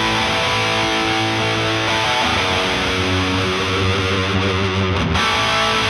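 Background music: strummed, distorted electric guitar playing steady chords, with a short break about five seconds in.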